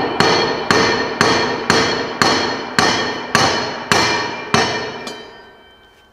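Hammer striking a steel rod set in a mower deck's spindle pulley, nine ringing metal blows about two a second, driving the pulley down off the spindle shaft. After the last blow the ringing fades out.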